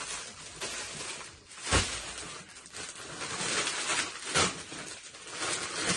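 Plastic bags and snack packaging rustling and crinkling as items are pulled out of a bag and handled, with a thump a little under two seconds in and another knock past the middle.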